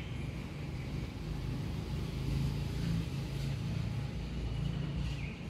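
A steady low rumble of outdoor background noise, with a faint bird chirp near the end.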